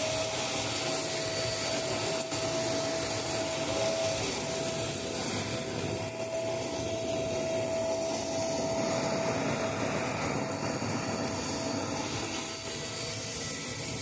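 Electrolux vacuum cleaner running steadily: a constant motor whine over rushing airflow noise.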